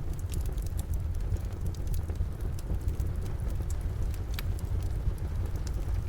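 Wood fire in a fireplace crackling with many small, sharp pops over steady rain and a deep, constant low rumble.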